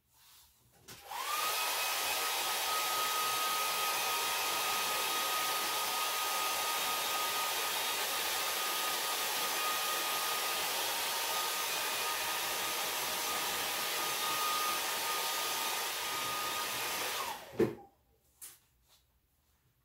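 Handheld hair dryer switched on about a second in, its whine rising as the fan spins up, then blowing steadily to dry a fresh coat of paint. It is switched off near the end and the whine falls away.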